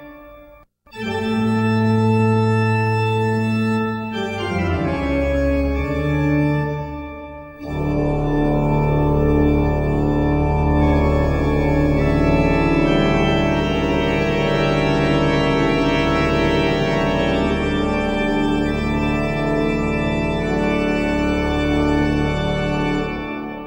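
Organ music playing sustained chords. After a brief gap about a second in, the chords change twice, then a fuller passage with a regularly pulsing bass comes in, and it all fades out near the end.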